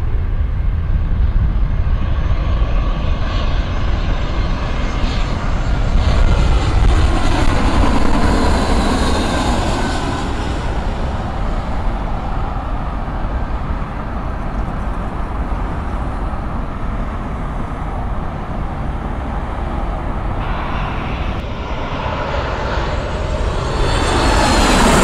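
Jet engines of a Spirit Airlines Airbus A320-family airliner on final approach, passing low overhead: the sound swells to its loudest about seven to ten seconds in, then drops in pitch and fades as the jet moves away. Near the end a second jet, a Delta Boeing 737 on approach, comes in louder.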